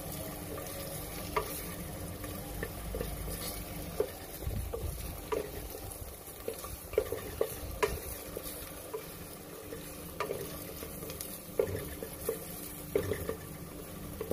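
Chopped garlic and ginger sizzling in hot oil in a pan while being stirred, with frequent light clicks and scrapes of the stirring utensil against the pan. The garlic is being sautéed until it browns.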